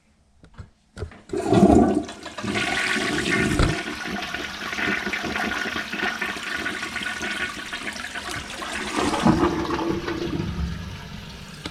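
A 1930s American Standard toilet flushing after its rebuild. A loud clunk about a second and a half in, then water rushing steadily from the tank into the bowl for about nine seconds, slowly fading.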